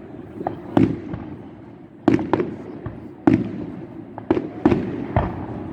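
Fireworks display: a string of sharp bangs, about eight in under six seconds at uneven intervals, each trailing off in a short echo.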